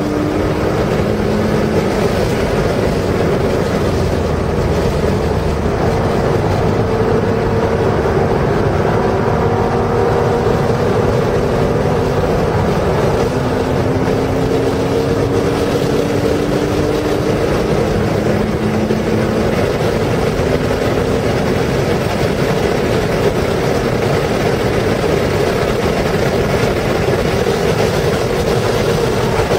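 Porsche engine running hard at speed on a racetrack, heard from inside the car over steady wind and road noise. Its note climbs slowly several times as the car accelerates.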